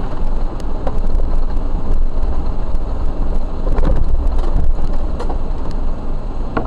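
Jeep driving slowly over a rough dirt trail: a steady low rumble of engine and drivetrain, with scattered knocks and rattles as it jolts over the uneven ground.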